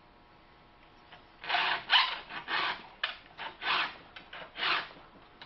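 File rasping across the cutter teeth of a Husqvarna chainsaw chain: a run of about six quick strokes, starting about a second and a half in.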